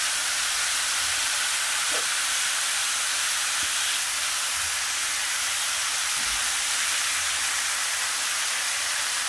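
Thin slices of pork neck sizzling steadily in a hot nonstick frying pan.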